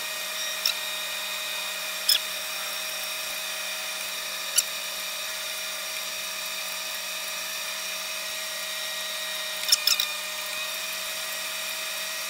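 A 12-volt fan in a homemade ice-chest air cooler running steadily, a constant motor whine with air blowing out through its PVC outlet. A few short clicks break in, with a small cluster about ten seconds in.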